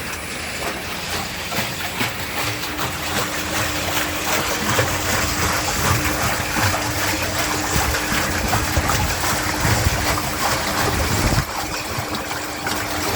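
Water churning and splashing inside a 500-litre cooking tank as its scraper and mixer turn, with a steady motor hum that comes in about two seconds in.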